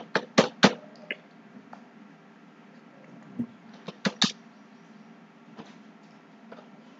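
Computer mouse clicking: three quick sharp clicks within the first second, two more about four seconds in, and a few fainter ones between, over a faint steady hum.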